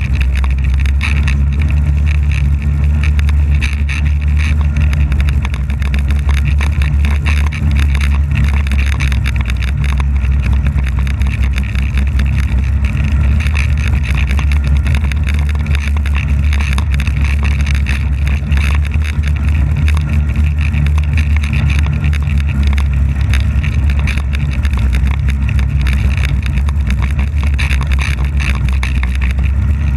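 Polaris snowmobile running steadily while being ridden along a trail, its engine heard close up from a camera mounted on the front of the sled. The level stays even throughout, with no changes in speed.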